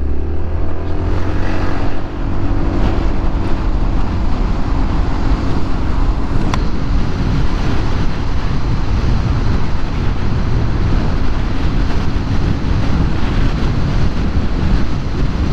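Honda Forza 350 scooter riding along at speed: its single-cylinder engine running under a steady rush of wind and road noise.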